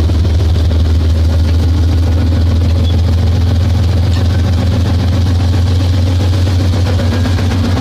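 Heavy railway diesel engine idling steadily, a deep even hum with a fine throb.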